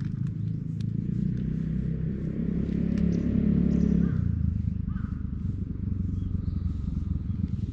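Brown tabby cat purring right at the microphone as it is stroked under the chin: a steady low rumble of rapid pulses, the sign of a contented cat. It swells to its loudest around the middle.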